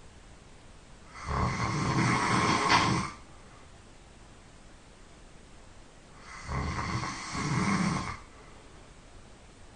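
A person snoring in sleep: two long snores about five seconds apart, the second breaking into two parts.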